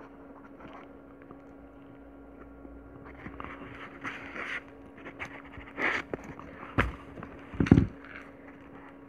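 Handling noise from hand beadwork: rustling and scraping as a needle and nylon thread are worked through a crackle-finish pearl, with two sharp knocks about a second apart near the end, the second the loudest. A faint steady hum runs underneath.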